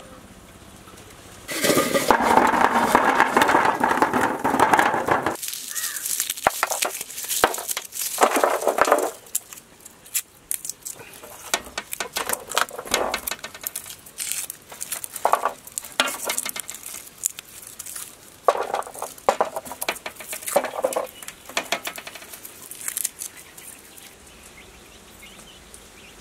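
Dry garlic skins crackling and rustling in short, uneven bursts as bulbs are broken apart and the cloves peeled by hand over a metal tray. About a second in, a louder, dense clatter lasts some four seconds.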